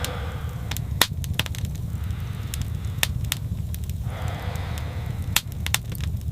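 Wood fire crackling, with sharp irregular pops and snaps over a steady low rumble; a soft hiss swells briefly about four seconds in.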